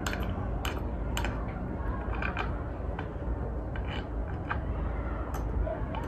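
Scattered light clicks and taps of hardware being fitted and tightened by hand on a small children's chair, about half a dozen sharp clicks over a steady low rumble.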